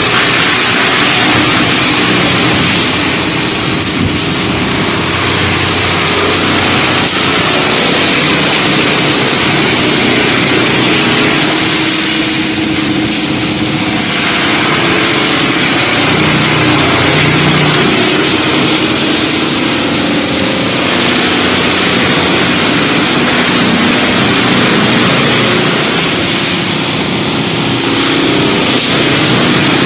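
FD1400-700 wood chipper running and chipping lumber and timber: a loud, steady grinding noise, with a machine tone that wavers in pitch.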